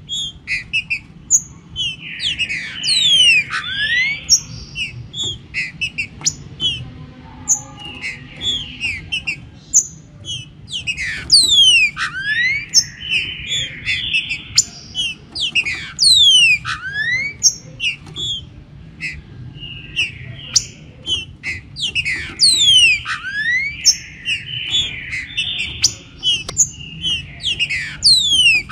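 Green-winged saltators (trinca-ferro) singing and calling, several birds overlapping: repeated fast whistled sweeps falling and rising in pitch, mixed with buzzy phrases, over a steady low background noise.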